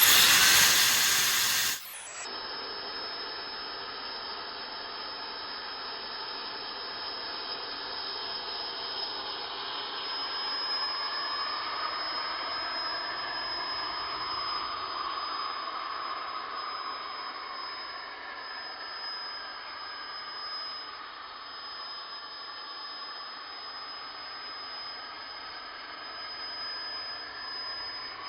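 A machine running steadily: a loud rush of noise for the first two seconds, then a continuous hiss with a thin high whine, its tone slowly swelling and shifting.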